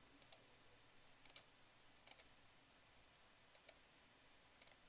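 Near silence broken by a few faint, scattered computer-mouse clicks.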